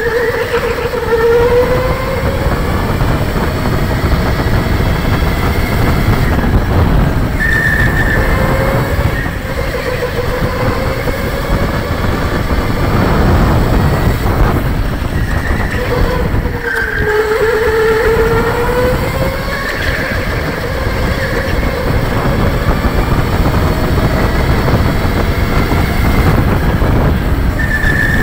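Electric go-kart's motor whining, rising and falling in pitch several times as the kart speeds up and slows through the corners, over a loud steady rumble.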